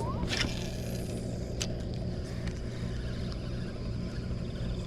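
Steady low rumble of road traffic, with a brief rising swish near the start and a single sharp click about a second and a half in.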